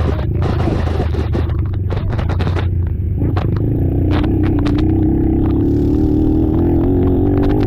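ATV engine running hard under race load, with a steady low drone and a stronger, slowly rising engine note about three seconds in. Many sharp clicks and scraping sounds run through it.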